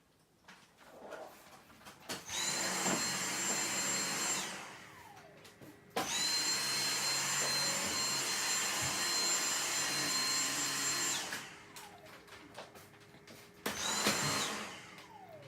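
Vacuum cleaner switched on and off three times: each spell starts suddenly with a steady rushing noise and a high whine, and the motor winds down with a falling tone after each switch-off. The middle spell is the longest, about five seconds.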